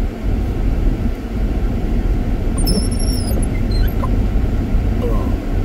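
Steady low road and engine rumble inside the cabin of a rear-wheel-drive car driving on snow-covered road. A brief faint high chirp comes about three seconds in.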